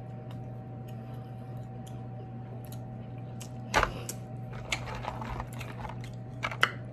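Sharp cracks and small clicks of king crab legs being broken and picked apart by hand, the loudest crack a little under four seconds in and two more near the end, over a steady low hum.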